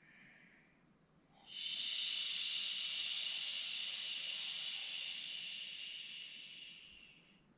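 A woman's long, slow exhale: a steady breathy hiss that starts about a second and a half in, lasts about six seconds and fades away gradually. It is a paced yogic breath, the exhale drawn out to twice the length of the inhale.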